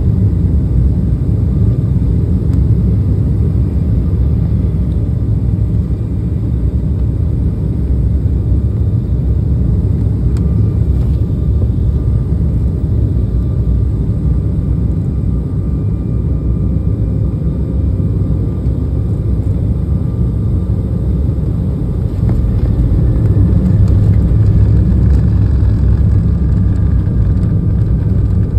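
Airliner cabin noise on the approach to landing: a steady low rumble of the engines and rushing air, with faint thin whining tones above it. The rumble grows louder about three quarters of the way through.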